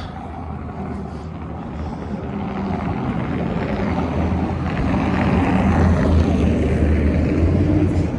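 A motor vehicle passing on the street: a low engine hum with tyre and road noise that grows steadily louder over several seconds and is loudest near the end.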